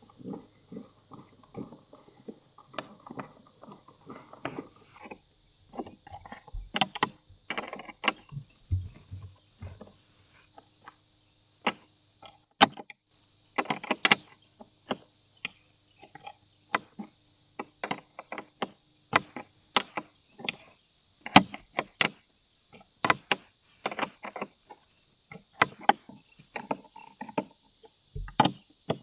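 Hand driver and bolts clicking and knocking against a hard plastic mirror housing as it is screwed onto a Sea-Doo Spark's plastic body, in irregular taps and clicks.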